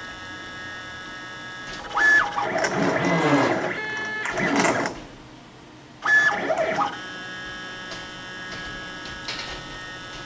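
CNC plasma table running: its stepper motors whine, rising and falling in pitch as the torch head moves, in two loud spells about two seconds in and about six seconds in. A steady electrical hum runs underneath.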